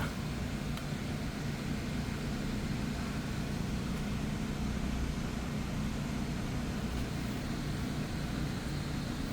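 Engine of heavy machinery, most likely the crane truck's, running at a steady speed with a low, even drone.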